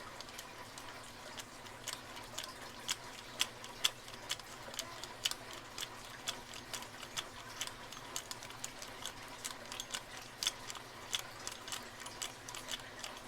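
Faint, irregular metallic clicking from a hook pick working the pins of a tubular lock under turning pressure, a few clicks a second.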